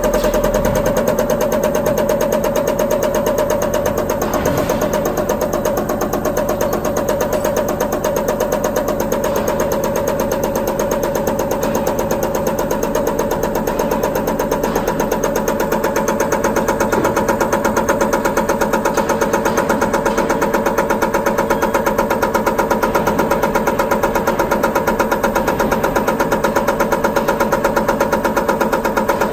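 Diesel injector test bench running an electronic unit injector in its cam box, the cam turning at about 500 to 600 rpm: a steady machine drone with a rapid, even pulsing as the cam drives the injector.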